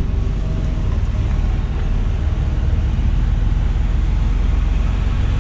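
Mercedes-Benz Actros truck's diesel engine running steadily at low speed as the truck creeps along, heard as a deep rumble inside the cab.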